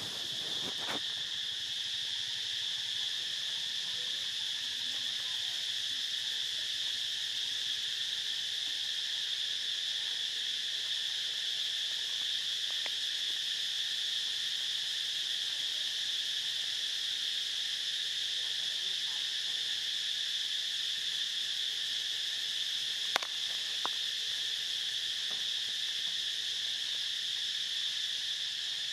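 Steady, unbroken high-pitched insect chorus. Two sharp clicks about a second apart come about two-thirds of the way through.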